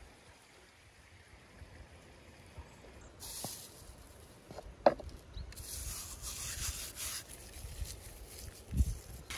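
Faint rustle of ground spices and dried thyme sprinkled by hand onto sliced onions and lamb in a plastic bowl, with a sharp knock about halfway through and a low thump near the end.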